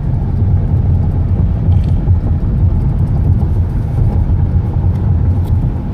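Car driving along, heard from inside the cabin: a steady, loud low rumble of road and engine noise.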